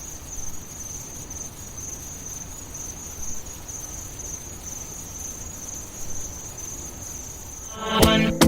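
Cricket trilling steadily over a low ambient hiss and rumble. Loud music comes in sharply near the end.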